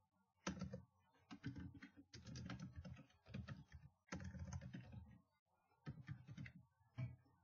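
Faint computer keyboard typing, keystrokes coming in short bursts with brief pauses between words.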